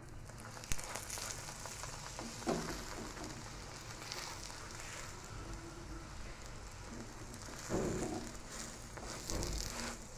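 Kulcha sizzling on a hot iron tawa in oil, a steady hiss. A sharp click about a second in and a few short knocks later, from a silicone spatula working the bread.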